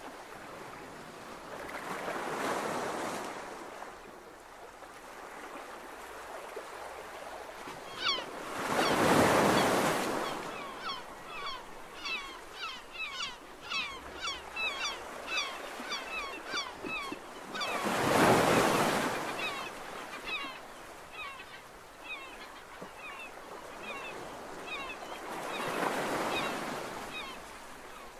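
Ocean surf breaking and washing up a beach in slow swells, four times, with a flock of birds chirping rapidly through the middle stretch.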